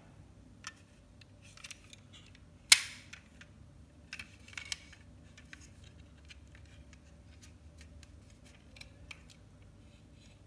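Small clicks and taps from handling a 1969 Chevrolet Camaro SS toy model car, with one sharp, loud click a little under three seconds in, fitting its opening door clicking shut.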